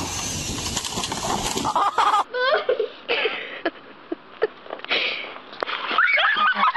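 Two home-video pool clips back to back: first a rush of noise, then people's voices exclaiming and shrieking. A loud shriek comes about six seconds in, as a girl breaks through a pool cover into the water.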